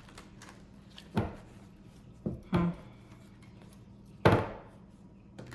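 A few sharp knocks on a hard surface, four in all, the loudest near the end, over a faint steady hum.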